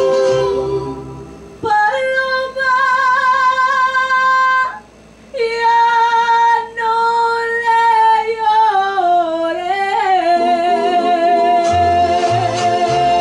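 A woman sings a Mexican love song into a microphone over backing music, holding long notes with vibrato. The voice drops out briefly about a second in and again about five seconds in, then glides down near the middle before settling on a long held note.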